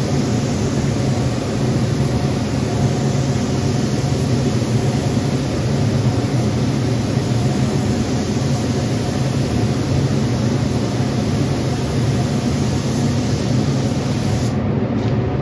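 Air-fed spray gun hissing steadily as it lays down 2K primer, over a steady low hum; the gun's hiss cuts off near the end when the trigger is released.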